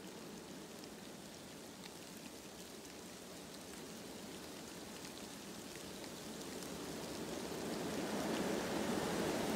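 Dark ambient noise texture: a rain-like rushing hiss with faint scattered crackles, slowly swelling louder and growing stronger over the last few seconds.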